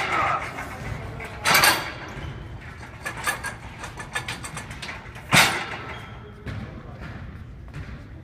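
Football blocking sled knocking and rattling on its frame as an athlete drives into its pad, with two loud knocks, one about a second and a half in and one about five and a half seconds in, and lighter rattling and clicks between them.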